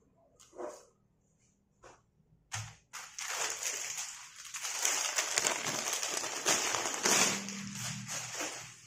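Clear plastic clothing bag crinkling as a packaged shirt is handled and slid out of it. A few short rustles come first, then about five seconds of continuous crackling.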